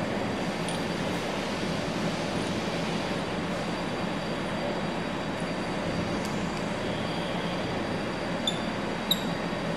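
Steady, even hiss of room background noise, with two faint, light ticks near the end.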